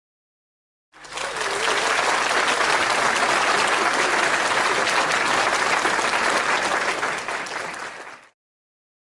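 Applause sound effect: a crowd clapping, starting about a second in and tapering off near the end.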